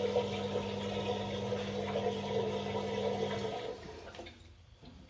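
Washing machine drain pump running with a steady hum while water rushes out through the drain hose, then cutting out about three and a half seconds in.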